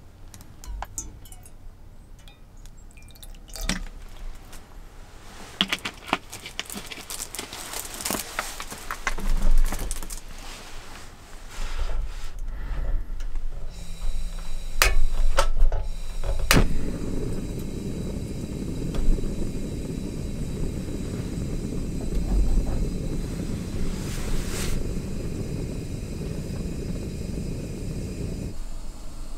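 Water poured from a plastic bottle into a metal Sierra cup, with light clinks and bottle handling. About halfway through, a cassette gas stove's igniter knob clicks and the burner catches, then runs with a steady low rush of flame under the cup.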